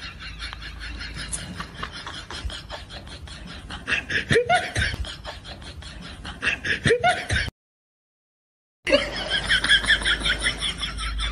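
Laughter sound effects: fast, repeated bursts of laughing and snickering. About three-quarters of the way through, the sound cuts off dead for just over a second, then a new laugh begins.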